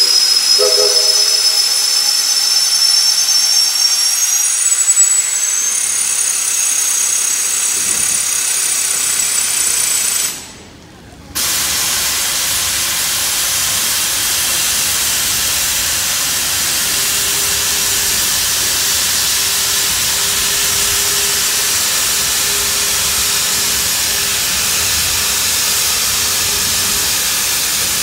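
Shay geared steam locomotives working a train, with loud, steady steam hiss. For the first few seconds a high, wavering squeal rides over it. About ten seconds in the sound drops away for a moment and then comes back as an even hiss.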